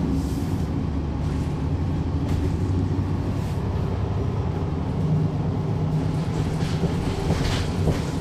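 Cummins ISL9 diesel engine of a NABI 40-SFW transit bus running, heard from inside the passenger cabin as a steady low drone.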